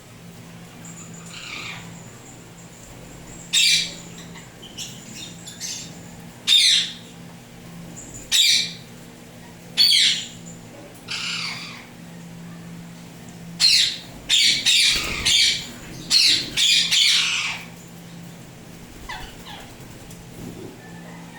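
Indian ringneck parrot squawking: short, loud, shrill screeches, single ones every couple of seconds at first, then quick runs of several in a row in the second half.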